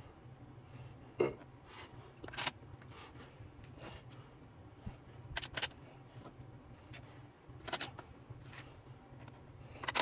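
Scattered short clicks and knocks of tools and transfer-case parts being handled during reassembly, over a steady low hum.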